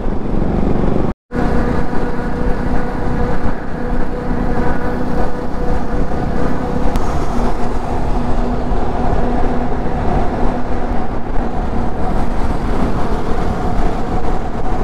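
Motorcycle riding at road speed, heard from the rider's helmet: wind rushing over the microphone over a steady engine hum. The sound cuts out completely for a moment about a second in.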